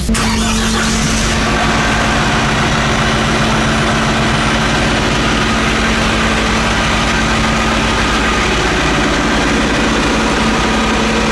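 Ferrari Vega compact tractor's diesel engine idling steadily, with an even, unchanging hum.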